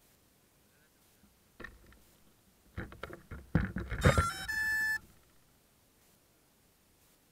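Knocks and clicks of a ZMR 250 racing quadcopter being handled on the ground, then a short two-tone electronic beep from the quad about four seconds in.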